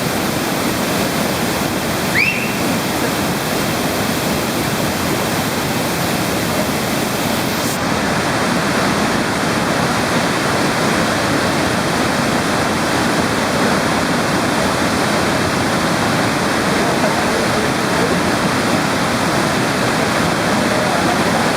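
Waterfall crashing down in a steady, loud rush of water, close to the microphone. A short, high, rising sound cuts through briefly about two seconds in.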